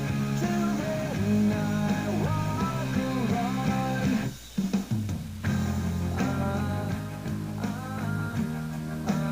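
Rock music with electric guitar and a sung vocal line, with a brief drop-out about four and a half seconds in.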